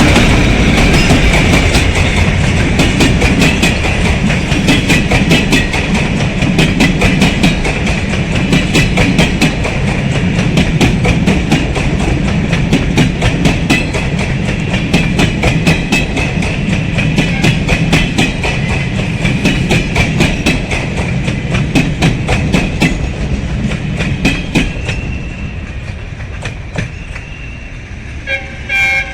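Train cars rolling past with a rapid, regular clickety-clack of wheels over rail joints, fading away over the last few seconds. There is a brief horn blast just before the end.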